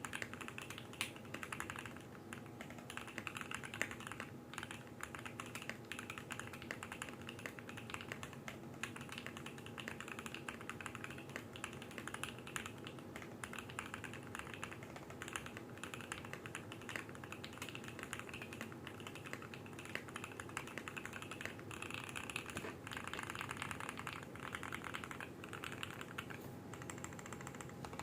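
Continuous fast typing on a custom mechanical keyboard with lubed and filmed linear Alpaca v2 switches mounted on a brass plate in an acrylic case, a dense run of keystroke clacks. A faint steady hum sits under the typing.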